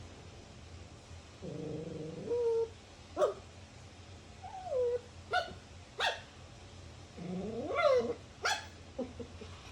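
A dog vocalising: a low growl about a second and a half in, then a run of short, sharp yips and barks, some sliding up or down in pitch, the loudest near eight seconds.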